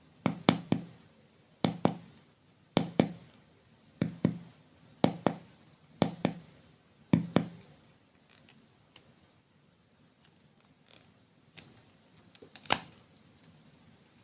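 Hands working with clay and slime at close range, making sharp clicks and taps in pairs and threes about once a second for about seven seconds. Then a few faint ticks and one more sharp click near the end.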